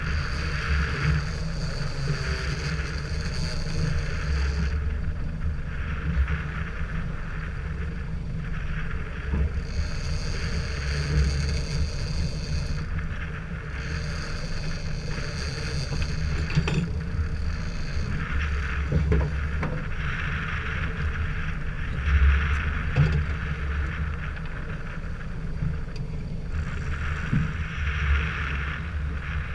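Small boat under way at sea: a steady low engine hum, with water rushing past the hull in surges every few seconds and wind on the microphone. A few faint knocks sound along the way.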